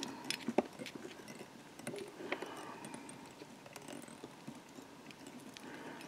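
Faint, irregular small ticks and rustling from a fly-tying bobbin being swung around the hook, wrapping thread. Two sharper clicks stand out, one under a second in and one a bit after two seconds.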